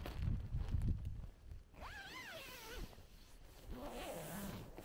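The door zipper of a Lanshan 1 trekking-pole tent being pulled closed from inside, with the nylon flysheet rustling. A sheep bleats once, a short wavering call, about two seconds in.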